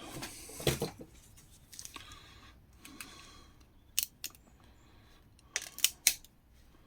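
Handling noise from small electronic parts being turned over: a few sharp clicks, three of them close together near the end, over light rustling.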